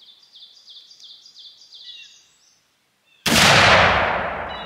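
A Pedersoli side-by-side muzzleloading shotgun, loaded with 100 grains of powder and 100 grains of shot, fires once about three seconds in: a sudden, very loud blast that rings out and slowly fades. Before the shot a bird sings a run of quick, repeated falling chirps.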